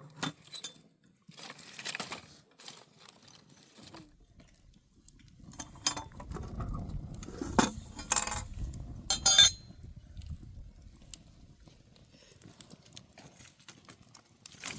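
Scattered light clinks and knocks of hard objects being handled, with a low rumble rising in the middle and two sharper clicks near its end.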